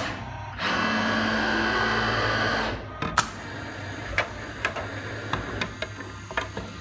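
PU gasket pouring machine's dispensing head running: a steady whirring hiss for about two seconds that starts and stops abruptly, followed by a sharp click. Then a scatter of light clicks and knocks from the plastic boxes being handled.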